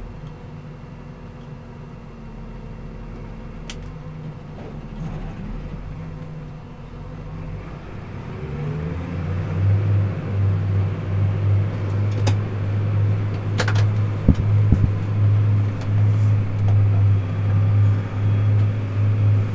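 Massey Ferguson tractor engine heard from inside the cab, running low at first, then revving up about eight seconds in to a steady, louder working drone. A few sharp clicks sound in the cab while it runs.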